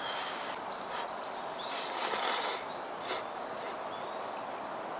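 A person slurping hot udon noodles in a few short noisy bursts, the longest and loudest about two seconds in.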